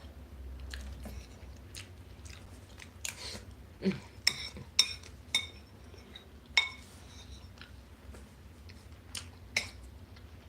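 Person eating close to the microphone: chewing and scattered mouth clicks, with a few sharp ringing clinks of cutlery against a dish between about four and seven seconds in.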